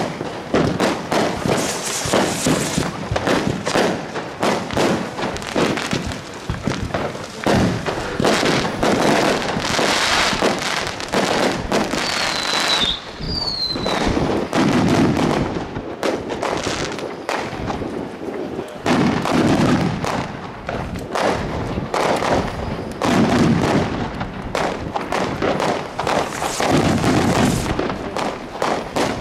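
Many fireworks going off at once, rockets and aerial shell bursts, in a dense, unbroken run of bangs and crackling. Two short falling whistles come about twelve seconds in.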